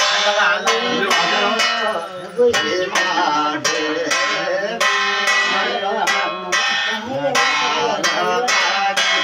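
Jagar ritual music: a metal plate set on a pot is struck with a curved stick in a steady, ringing beat, while a voice sings the jagar chant over it.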